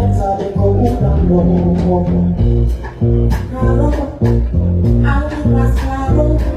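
Live band playing an Afrobeats groove during a sound check, with a heavy bass line, guitar and drums on a steady beat.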